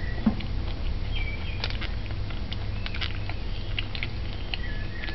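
A metal fork tapping and scraping on a ceramic plate while someone eats, with scattered sharp clicks and a few faint high squeaks, over a steady low hum.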